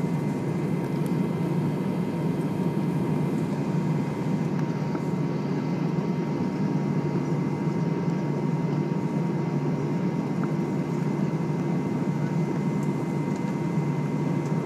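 Airbus A320 cabin noise: a steady low drone from the engines and airflow with a thin, steady whine above it, typical of the aircraft taxiing with its engines at idle.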